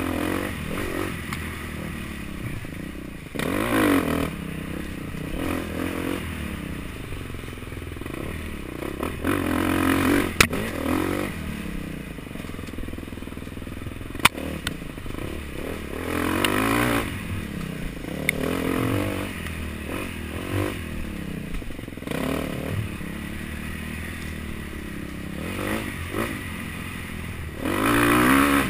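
Dirt bike engine running hard and revving up in repeated bursts between gear changes and throttle chops while ridden along a rough trail. There are a couple of sharp knocks in the middle, and the loudest burst comes near the end.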